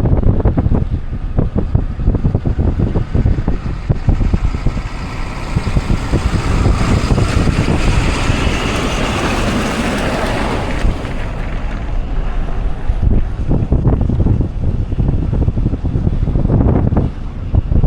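Wind buffeting the microphone over the low rumble of a car driving. A rushing hiss swells over several seconds in the middle and then fades.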